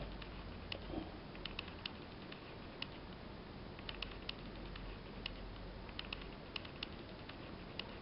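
Faint, irregular small clicks and ticks over a low steady hum: handling noise from a hand-held camera and a plastic card being moved over paper.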